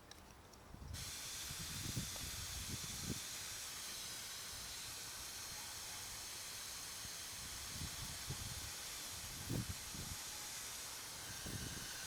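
Steady high hiss of the outdoor background with faint high tones running through it. A few short low thumps come on the microphone, around two to three seconds in and again near the end.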